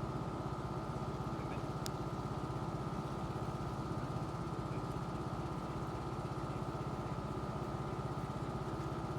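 Riding lawn mower engine running at a steady speed, its rapid firing pulses even and unchanging.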